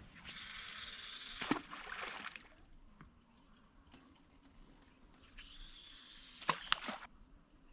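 Fishing rod swept back in a hook set and the spinning reel cranked: a rush of hissing noise with a sharp knock about a second and a half in, then quieter, with a second shorter rush and two quick knocks near the end.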